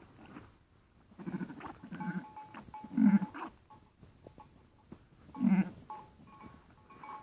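Sheep bleating several times, the loudest calls about three seconds in and again about five and a half seconds in.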